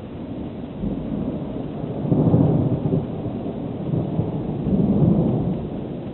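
Thunder rumbling, rolling in swells about two seconds in and again near five seconds, then fading.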